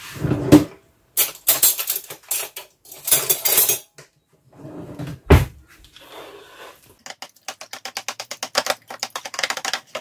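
A spoon clattering and scraping against a plastic mixing bowl while eggs, salt and chopped giblets are beaten together. There is a sharp knock about five seconds in, then a fast, steady run of beating strokes in the last three seconds.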